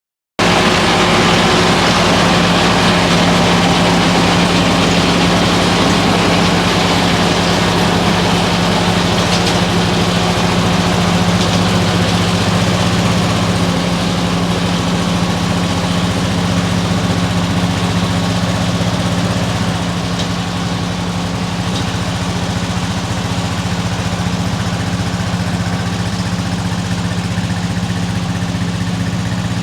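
Kubota L3200 compact tractor's diesel engine running steadily, with a strong low hum, working a Farm Maxx mini round baler in the hay field.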